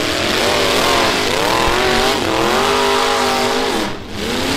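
Half-ton pickup truck engines in a demolition derby revving hard, their pitch rising and falling repeatedly as the trucks accelerate and back off.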